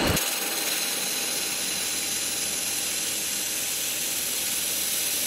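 xTool MetalFab handheld laser welder running a bead on 1/8-inch aluminum with filler wire feeding: a steady, even hiss with a fine crackle, starting just as the weld begins.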